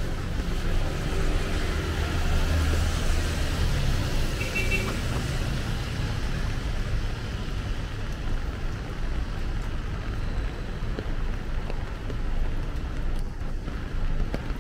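Road traffic on a rain-wet street: cars passing with tyres hissing on the wet asphalt, and a heavier engine rumble in the first few seconds that eases off after.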